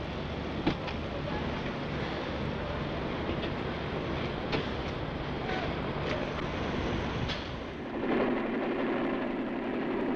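Construction-site machinery running: a steady engine rumble with scattered knocks and clanks. About eight seconds in, a steadier, higher-pitched engine drone comes in.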